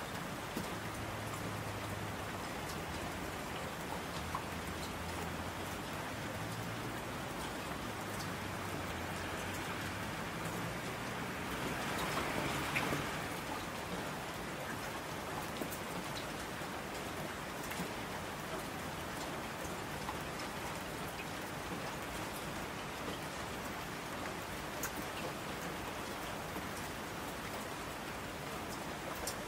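Steady rain falling, with scattered single drop ticks; it swells briefly about twelve seconds in.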